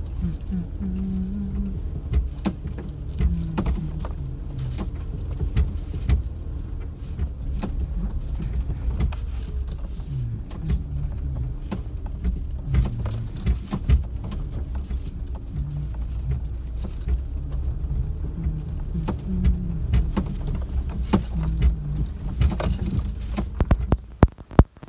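Footsteps on a leaf-strewn dirt track with light metallic jingling and many small clicks, over a steady low rumble on the microphone from walking with the camera.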